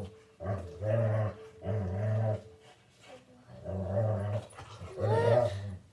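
A dog growling in a series of low growls, about five, each under a second long with short pauses between.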